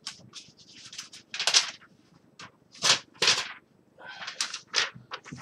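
Handling noise: a string of short rustles and scrapes from arm and hand movement close to the microphone, the loudest about one and a half and three seconds in.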